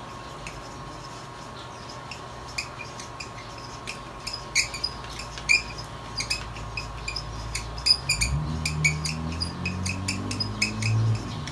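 Marker pen squeaking on a wall chart in many short strokes as a line of text is written. A low drone rises under it in the last few seconds.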